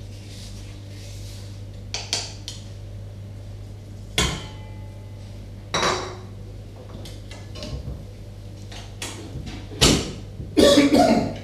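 A spatula knocking and scraping against plastic mixing bowls and a stainless steel stand-mixer bowl as sugar is scooped across, a handful of separate clacks with the loudest near the end, over a steady low hum.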